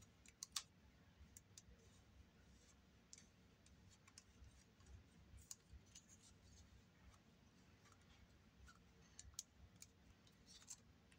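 Faint, scattered clicks and taps of a plastic Playmates Battle Roar Godzilla Evolved action figure being turned and posed in the hands, the sharpest click about half a second in, over near-silent room tone.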